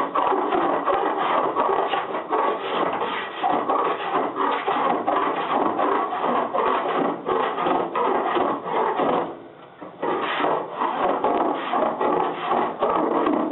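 A body file rasping over hardened body solder on a car body panel in steady back-and-forth strokes, with a brief pause a little over nine seconds in. The solder is shaving off rather than flaking, the sign that it is well adhered.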